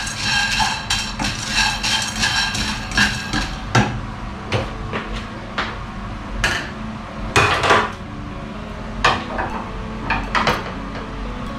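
Frying pan and metal kitchenware clanking and clattering, with a string of separate sharp knocks, as a stovetop coffee roast is brought to an end.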